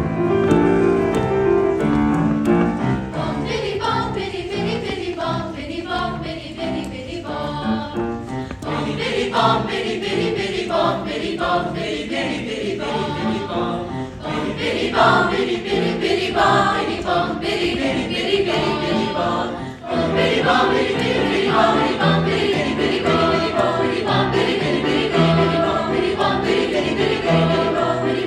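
High school choir singing, with lower notes joining in beneath the voices about twenty seconds in.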